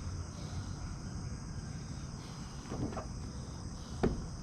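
Steady high chirring of crickets or other night insects, with a single sharp knock just after four seconds and a fainter brief sound near three seconds.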